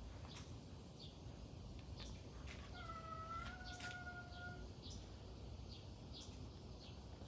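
A domestic cat gives one long, nearly level meow lasting almost two seconds, starting about three seconds in, over a faint outdoor background with brief high chirps.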